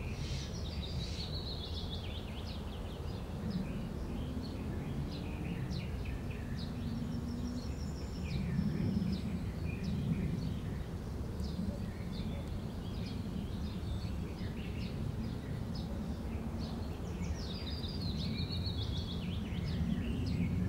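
Outdoor ambience: birds chirping and trilling over a steady low background rumble.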